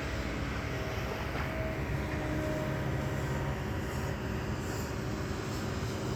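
Kobelco excavator's diesel engine running steadily, a constant low drone with a few held tones over it.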